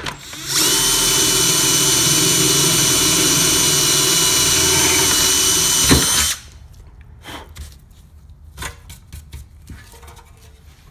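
Power drill running at a steady speed as a twist bit bores a pilot hole through a steel oil pan, starting about half a second in and stopping abruptly about six seconds in. Faint knocks follow.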